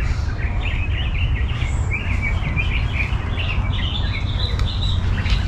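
Many birds chirping and calling in quick, short notes, with a steady low rumble underneath.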